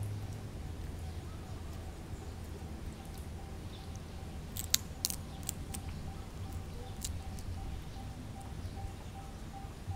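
Low background hum under a faint, evenly pulsing high tone, with a few sharp clicks about halfway through.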